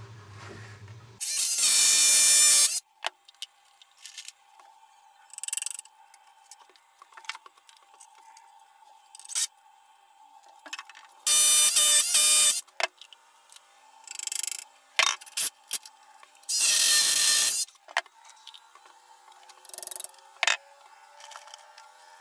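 Power drill run in three short, loud bursts while a timber batten is fixed to the wall, with small clicks and taps of handling between the bursts.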